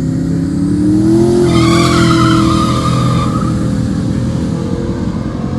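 A car engine revving up over about a second and a half and holding high, with tyres squealing for about two seconds in the middle.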